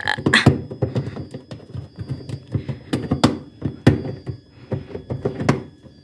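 Irregular plastic knocks and clicks as the lint filter is worked loose and pried off the inside wall of a twin-tub washing machine's wash tub, mixed with close handling bumps.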